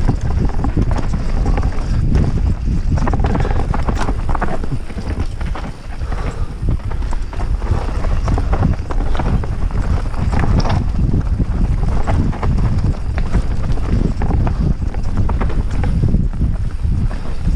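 Mountain bike riding fast down rough singletrack, heard from a camera on the ride. A steady low rumble runs under it, broken by irregular clattering knocks and rattles as the bike goes over roots and rocks.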